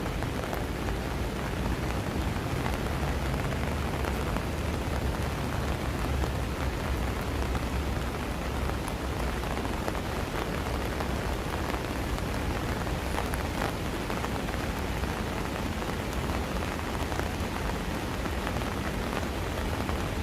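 Steady rain falling, with a few sharper drop ticks.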